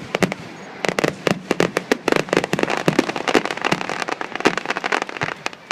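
Fireworks exploding overhead: a dense barrage of sharp crackling bangs in quick succession, thickest from about a second in until just before the end.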